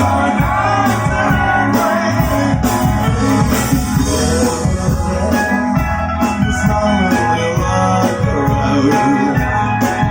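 A live rock band playing a song: electric guitar, bass and drums, with a voice singing over them.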